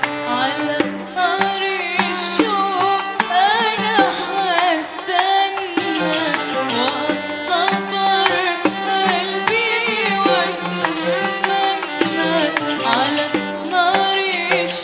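Arabic song music: a passage led by a bending, ornamented melody over hand percussion.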